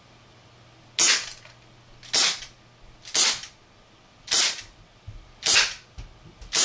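HFC HG132 gas-powered airsoft revolver, filled with propane, firing a string: five sharp shots about a second apart, and a sixth starting right at the end. Each shot fades quickly.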